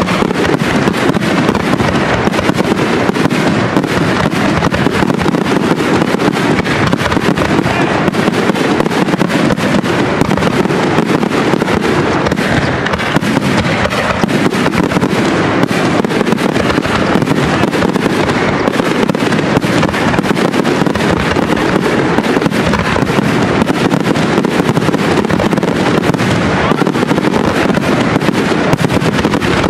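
Aerial firework shells bursting in a dense, unbroken barrage, the reports following one another so fast they run together into a continuous rumble.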